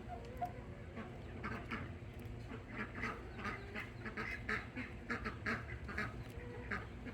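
Farmyard poultry calling in a run of short, quick calls, several a second, starting about a second and a half in and carrying on to the end.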